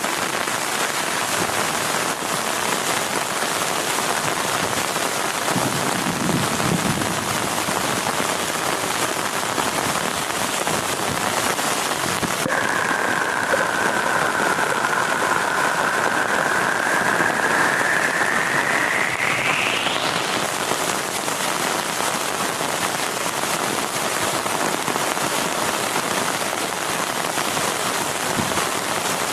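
Heavy rain falling steadily on a tent in an even hiss. About halfway through, a thin high tone sounds for several seconds, then rises sharply in pitch and stops.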